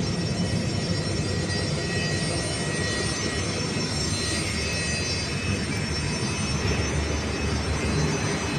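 Jet airliner engines running steadily at taxi power: a continuous low rumble with a steady high turbine whine over it.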